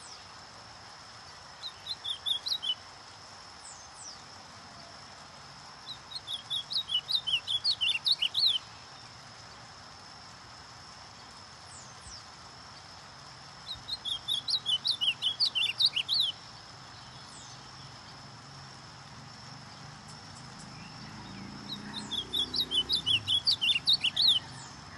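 Ultramarine grosbeak (azulão) singing four phrases, each a rapid run of sharp whistled notes lasting two to three seconds, the first one shorter, with pauses of several seconds between them.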